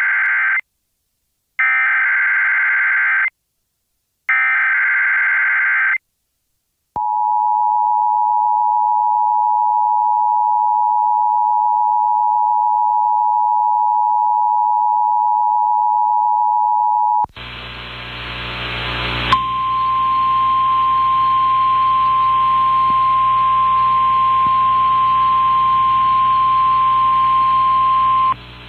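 Emergency Alert System activation on FM radio. Three bursts of screeching SAME header data are followed by the EAS attention signal, a steady two-note tone lasting about ten seconds. After a couple of seconds of noisy hum comes a single steady tone over hiss, the NOAA Weather Radio warning alarm tone relayed from the weather service.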